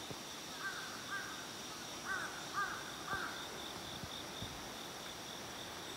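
A bird giving about five short, arched calls in the first three and a half seconds, over a steady high-pitched insect drone.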